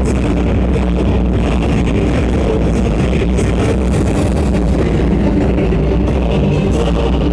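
Loud, steady rock music with guitar, the kind of soundtrack played with a fireworks show.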